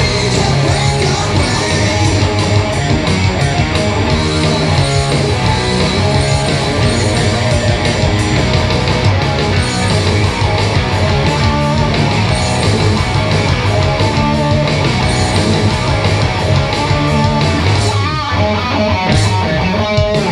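Heavily distorted electric guitar played along to a rock backing track: a Harley Benton SC Junior fitted with a DiMarzio Tone Zone humbucker, through the high-gain second channel of an ENGL Thunder amp.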